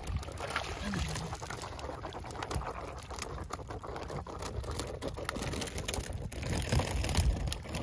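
A long-handled dip net scooped through the sea, splashing, then water pouring and dripping out of the mesh, with scattered small knocks and clicks.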